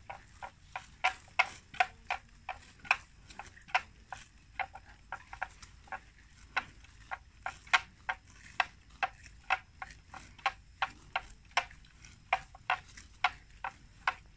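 Water buffalo grazing, tearing and cropping grass in a quick, uneven run of sharp crisp rips, about two to three a second.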